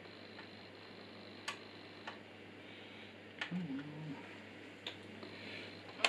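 Scattered light clicks and taps of metal PC case parts being handled, about six in all, the sharpest about one and a half and three and a half seconds in, with a short low hum just after the second.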